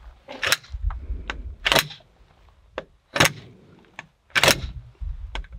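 A Glock pistol bashed repeatedly against a dead, splintered tree trunk: four hard knocks roughly a second and a half apart, with lighter knocks between.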